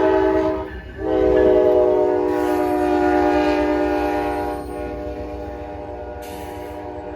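Amtrak locomotive's Nathan K5LA five-chime horn sounding a steady chord in a horn show: one blast cuts off about 0.7 s in, then a long blast starts about a second in, drops in level at about four and a half seconds and holds on more quietly.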